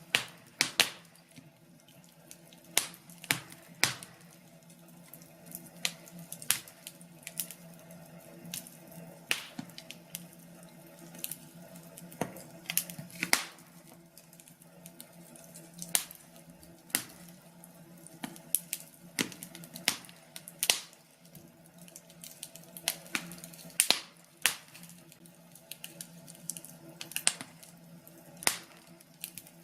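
Wood fire in a fireplace crackling and popping: irregular sharp snaps, a few loud ones every second or two with smaller crackles between, over a low steady hum.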